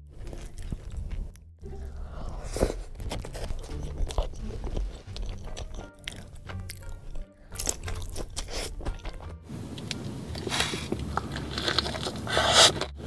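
Close-miked mukbang eating: repeated crunchy bites and chewing of Wingstop fried chicken wings and cheese-covered fries, in short clips with brief gaps at the cuts. The loudest bites come near the end.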